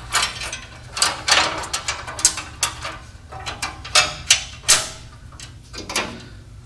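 Irregular metallic clicks and clinks from new steel fuel lines and their brass flare nuts being handled and threaded together by hand at the truck's frame rail, with a few louder clinks about four seconds in.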